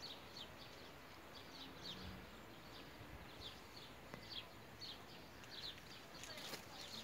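Faint, rapid high chirping of small birds, about two short chirps a second, over a steady outdoor hiss.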